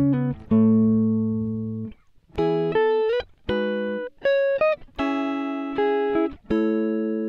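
Background music: a guitar playing slow chords, each struck sharply and left to ring out and fade, with short breaks between them.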